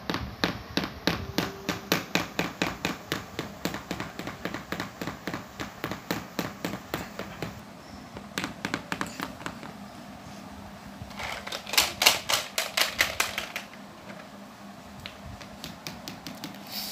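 Hard plastic toy elephants' feet clicking and tapping on a ceramic tile floor as they are walked along by hand, about four taps a second. A louder, quicker flurry of taps comes in the middle.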